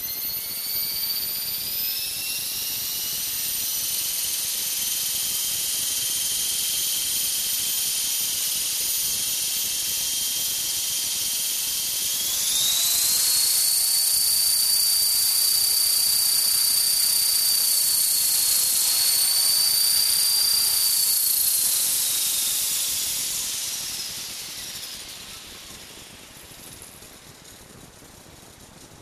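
Electric RC helicopter's motor, gears and rotor spinning on a clamped test stand: a high whine that is still climbing at the start, holds steady, steps up in pitch about halfway through, then falls away over a few seconds as the rotor spins down.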